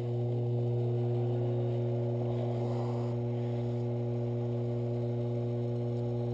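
Sherline metal lathe running steadily at slow speed, a low, even electric hum from its motor.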